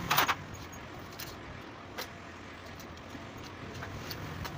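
A short metallic rattle of tools and parts being handled at a bare motorcycle engine crankcase, then a few faint clicks over a steady low background rumble.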